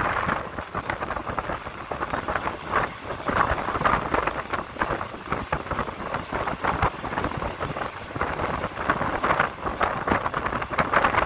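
Passenger train coach running along the track: steady rumble with wheels clicking and rattling over the rails, and wind rushing past the open window.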